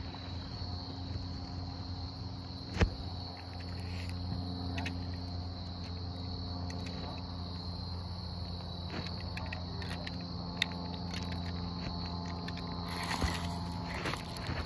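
Insects chirring in a steady, high, continuous buzz over a steady low hum. A sharp knock comes about three seconds in, a lighter click near the middle, and a short rustle near the end.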